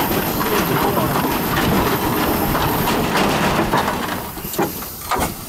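1886 Scheidler steam tractor running, steam hissing over a busy mechanical clatter. The noise drops away near the end, leaving a few separate knocks.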